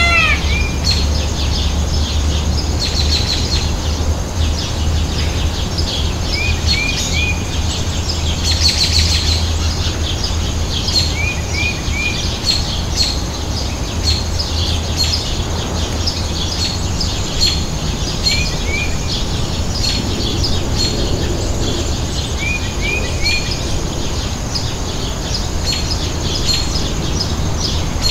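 Wild birds chirping and twittering, with many short high chirps and a quick three-note call that comes back every few seconds, over a steady low hum.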